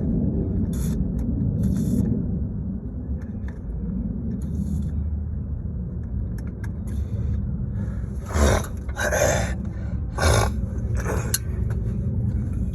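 Steady low rumble, with a run of short scrapes and clicks in the second half as parts are handled in a pickup truck's engine bay.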